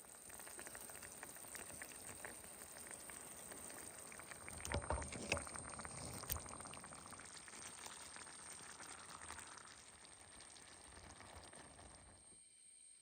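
Food sizzling and crackling in a hot pan, with a few louder knocks about five seconds in. It fades out near the end.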